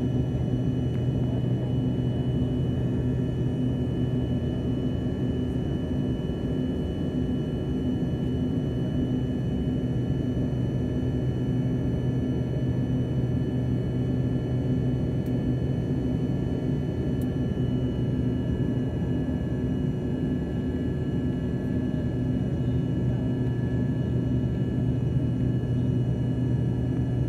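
Cabin noise of an Embraer ERJ-145 climbing after takeoff. Its rear-mounted Rolls-Royce AE 3007 turbofans drone steadily: a low hum and a low rush of air, with several faint steady whining tones above.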